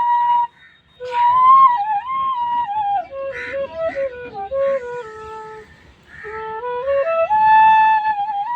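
Flute playing a slow melody, with held notes joined by smooth slides and ornaments. It stops briefly twice, near the start and about two-thirds of the way through.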